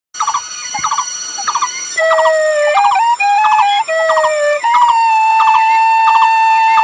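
Background music: a melody of held notes that step up and down, ending on one long sustained note, over a steady repeating beat.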